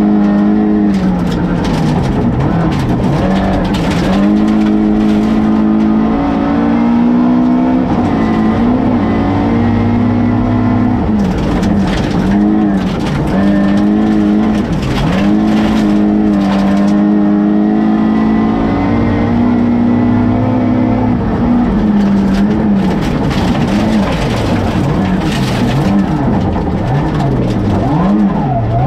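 Rally car engine heard from inside the cabin at stage pace, its revs holding, dropping and climbing again over and over through gear changes and lifts for corners. Gravel rattles against the car in sharp clatters.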